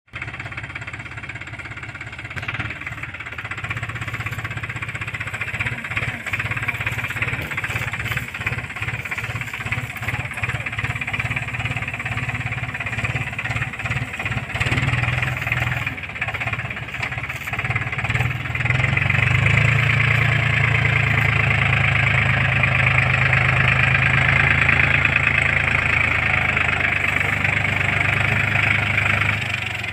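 Powertrac Euro 47 tractor's diesel engine working under load while towing a thresher. It runs with an uneven, pulsing note at first, then grows louder and steadier about two-thirds of the way through, easing just before the end.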